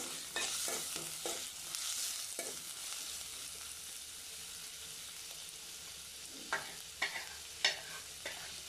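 Sliced onions with garlic and ginger paste sizzling in soybean oil in a metal pot, a spoon stirring and scraping through them as they fry to brown. There are a few sharp clicks near the end.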